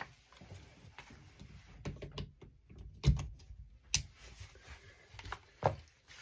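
Handling noises as an electric iron and its cord are moved about on fabric: scattered light knocks and taps, with a dull thump about three seconds in and a sharp click about a second later.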